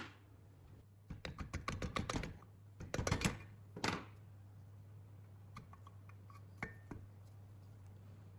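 Hand work with tools on small metal parts: a quick run of about a dozen sharp clicks, two louder scrapes, then a few scattered light taps, over a steady low hum.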